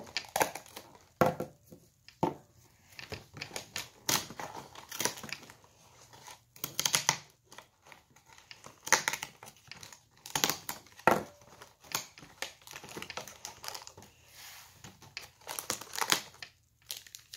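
Advent calendar packaging crinkling and tearing in irregular bursts as it is handled and opened.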